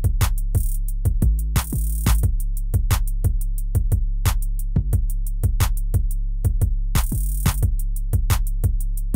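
Background music with a steady drum-machine beat of about three strokes a second over sustained bass notes.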